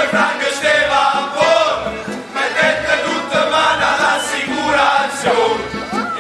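A group of men singing a folk song together in chorus, with instruments playing along and frequent short percussive strokes.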